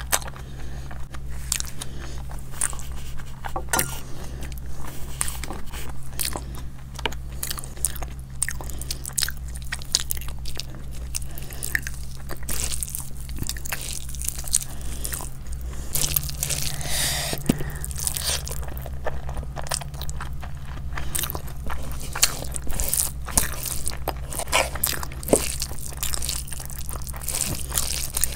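A person eating close to the microphone: irregular biting, crunching and chewing of food, with wet mouth clicks. A steady low hum runs underneath.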